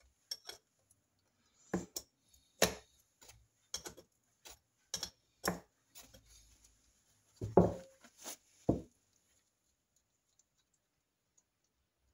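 Irregular knocks and clicks, with light metallic clinks, as a Norton Commando gearbox casing is handled and shifted about in a plastic drip tray. There are about a dozen sharp taps over the first nine seconds, the heaviest about seven and a half seconds in.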